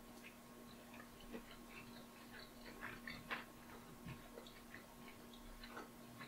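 Faint mouth clicks and soft smacks of someone chewing a piece of steak, a few scattered ticks over a low steady hum.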